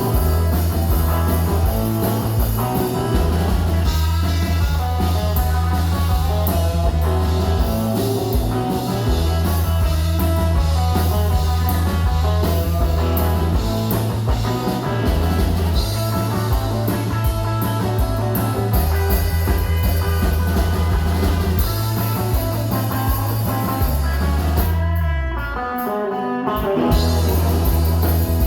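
Live rock band playing an instrumental passage: electric guitar over bass and drum kit. Near the end the band drops out for about two seconds, with a falling sweep, then comes back in full.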